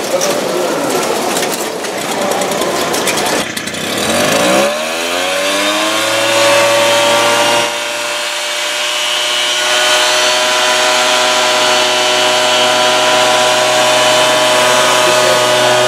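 A few seconds of hen-house noise, then a backpack mist blower's small engine speeds up over about two seconds and runs on at a steady high pitch while it blows disinfectant powder through its hose.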